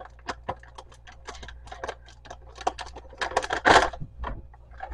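A plastic bag of French fried onions being handled, its packaging crinkling in a run of irregular small crackles and clicks, with a louder rustle about three and a half seconds in.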